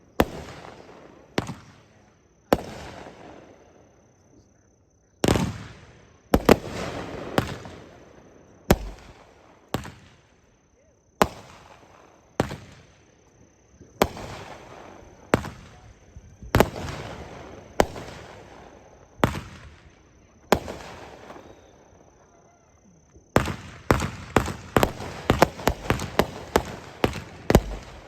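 Consumer aerial firework cakes firing: single loud shots about every one to one and a half seconds, each with an echoing tail. Near the end comes a rapid run of crackling reports, several a second.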